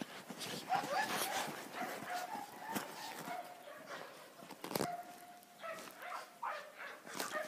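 Puppies whining with thin, high drawn-out whimpers, several times, over scuffling and crunching in snow, with one sharp knock about five seconds in.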